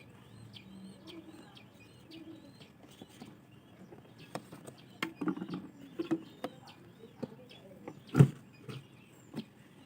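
Birds chirping, with pigeons cooing low in the first couple of seconds. From about four seconds in comes an irregular run of sharp knocks and taps, the loudest a little past eight seconds.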